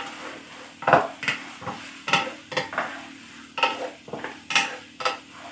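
Wooden spatula scraping and tossing tomato chunks and scrambled egg in a nonstick wok, short strokes at an uneven pace of about two or three a second over a faint sizzle of the frying food.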